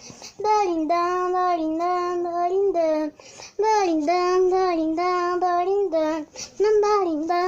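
A young girl singing long held notes in a slightly wavering voice, with two brief breaks, about three seconds in and again near six seconds.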